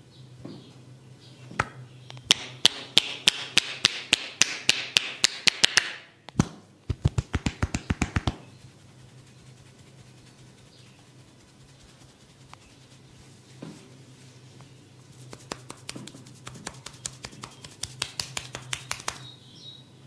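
Rapid percussive massage tapping, sharp strikes on the body in three runs. A long run goes at about five strikes a second, a short faster run follows, and after a pause another run comes near the end. A faint steady hum sits underneath.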